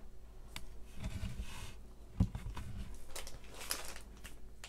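Small plastic glitter glue bottles handled and set down on a cutting mat: a few light knocks, the clearest about two seconds in, with soft rustling of hands near the end.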